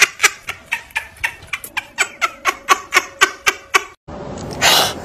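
A person laughing in a rapid, even run of short 'ha' pulses, about five a second, which stops abruptly about four seconds in. Then a kitten's single short hiss.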